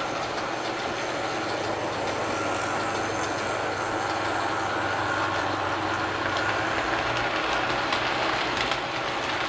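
Model train running along layout track: a steady rolling noise of wheels on the rails, with a low steady hum underneath.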